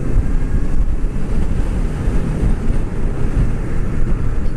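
Steady wind rush and low rumble on the microphone of a motorcycle riding at road speed.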